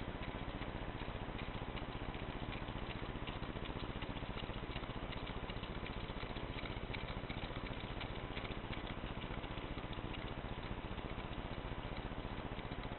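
Several low-temperature-differential Stirling engines running on blocks of ice, their displacers and linkages making a fast, irregular patter of light ticks over a steady hiss and low hum.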